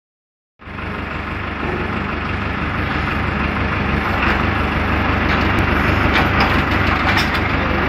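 Tractor engine running steadily as the mounted reversible plough is turned over, with a few light clicks and knocks in the second half.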